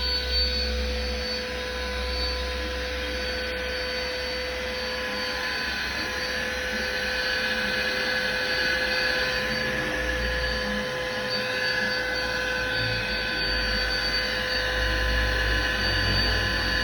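Portable vacuum cleaner running steadily, its motor giving a constant whine over the rush of air.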